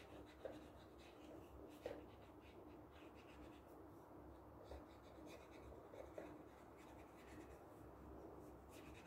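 Felt-tip marker rubbing on paper in short colouring strokes, faint, with a few light taps of the tip.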